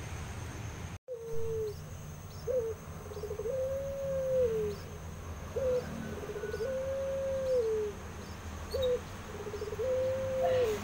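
Barbary dove (puter pelung, a long-cooing ringneck dove) cooing: three repeated coos about three seconds apart. Each is a short clipped note, then a quick stuttering purr, then a long drawn-out note that swells and falls away.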